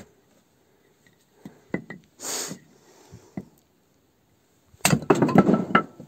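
Firewood being split and handled for lighting a wood stove: scattered wooden knocks and a short scraping rush, then a loud clatter of rapid knocks and clinks near the end.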